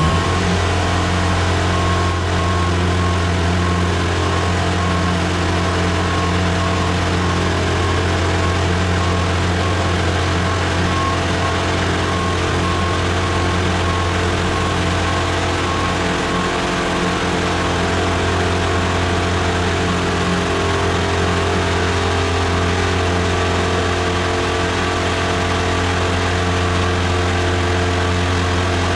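Diesel engine of a boom lift running steadily at a constant speed, with a strong low hum.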